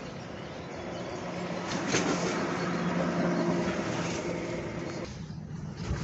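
A motor engine's steady hum, growing louder over the first couple of seconds and dropping away about five seconds in, over outdoor background noise.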